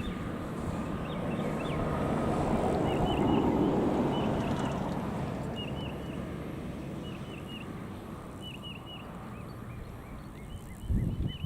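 A passing vehicle on a road: its noise swells to a peak a few seconds in and slowly fades. Over it a bird repeats short chirps about once a second, and a few low thumps come near the end.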